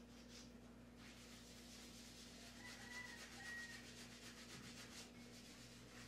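Faint, continuous rubbing, a soft hiss, over a low steady hum.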